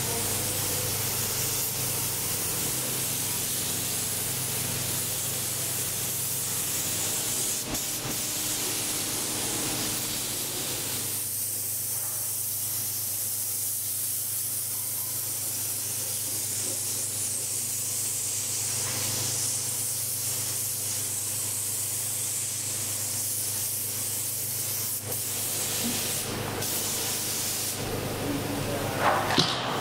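Compressed-air gravity-feed paint spray gun hissing steadily as it sprays paint onto a motorcycle frame, over a steady low machine hum.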